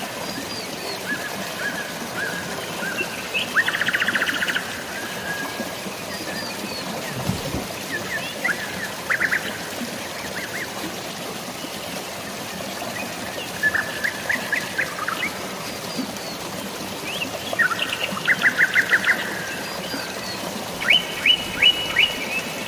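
Birds chirping over a steady wash of rain and flowing water, the birds calling again and again in quick trills of rapid repeated notes.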